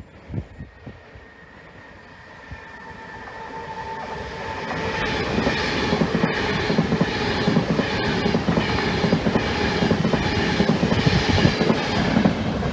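A passenger train runs through the station. It grows steadily louder over the first few seconds, then stays loud with rhythmic wheel clatter on the rails.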